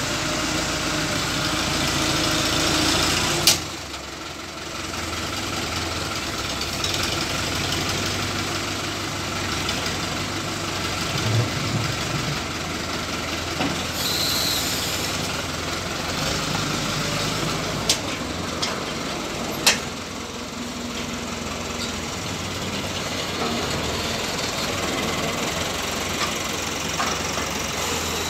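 Fiat 70-56 tractor's four-cylinder diesel engine running steadily as its front loader digs into and lifts manure and tips it into a trailer, with a few sharp knocks.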